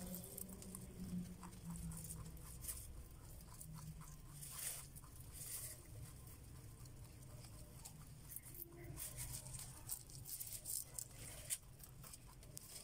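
Rabbit chewing a fresh green plant stalk: a quick, irregular run of faint crisp crunching nibbles.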